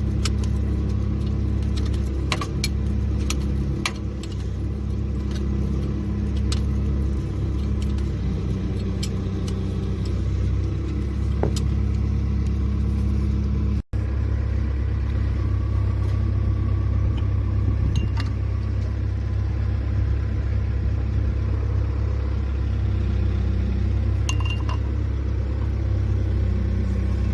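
Diesel engine running steadily with a low, even hum, with scattered light metallic clinks of hand tools on engine parts.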